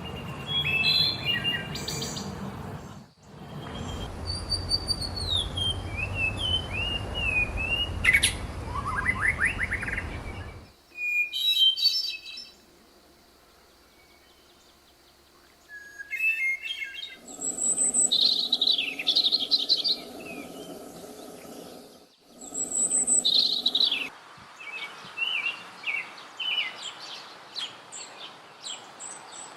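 Several songbirds singing: quick chirps, whistled slurs and trills. For the first ten seconds they sit over a low background rumble. The sound cuts abruptly several times from one recording to another, with a near-silent pause between about 12 and 16 seconds in.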